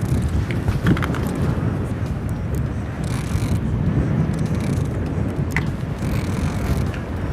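Wind rumbling on the microphone aboard an open fishing boat, a constant uneven low rumble with a few faint clicks.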